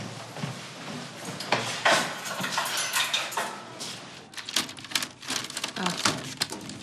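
A run of clinks and clatters of hard objects, like crockery and cutlery being handled, growing denser in the second half.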